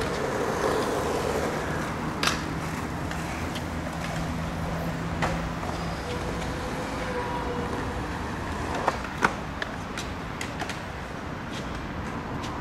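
Skate park ambience: a skateboard rolling on concrete with a few sharp board clacks, two close together about three-quarters of the way through, over a steady background traffic hum.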